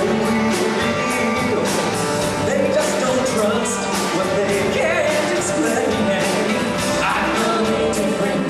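Live rock band playing loudly: drum kit with cymbals, electric guitar and keyboards.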